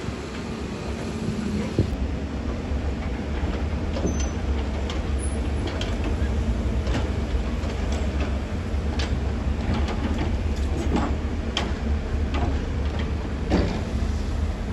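Heavy diesel earthmoving machinery running with a steady low rumble, with scattered metallic clanks and knocks through it.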